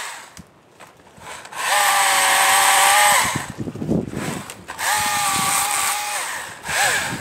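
Battery-powered chainsaw cutting brush, its electric motor whining up to speed on each trigger pull and winding down on release. Two runs of about a second and a half each, then a short blip near the end.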